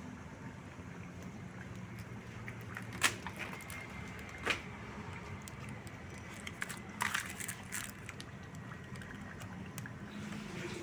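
Pan of chicken broth boiling hard over a wood fire, bubbling steadily, with a few sharp pops or crackles: one about three seconds in, another a second and a half later, and a small cluster about seven seconds in.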